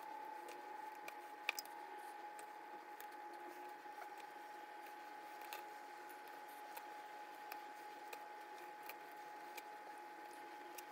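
Faint small clicks and taps of watercolour paint tubes and their caps being handled and set down as paint is squeezed into a plastic palette, over a steady faint hum. The sharpest click comes about a second and a half in.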